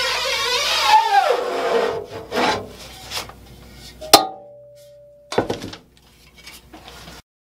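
Aluminium scoop coater scraped up the mesh of a screen-printing screen while laying on emulsion, a loud rubbing scrape that stops after about a second. Lighter scrapes and handling knocks follow, then a sharp click about four seconds in, and the sound cuts off near the end.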